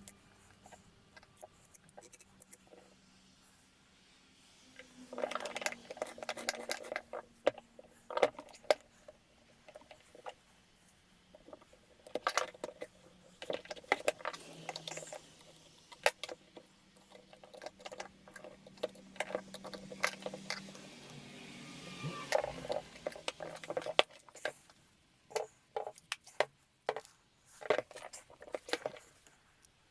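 Irregular clicks, knocks and metallic clinks of small parts and tools being handled, with a few clattery clusters and a faint steady hum underneath.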